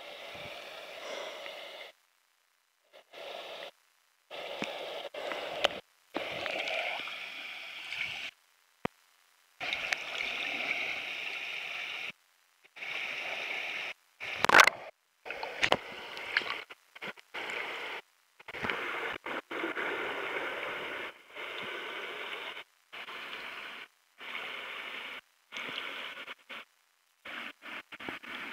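Rushing water of a creek waterfall, a steady hiss that cuts out abruptly to dead silence again and again. A few sharp clicks come through, and one loud sharp knock about halfway is the loudest thing.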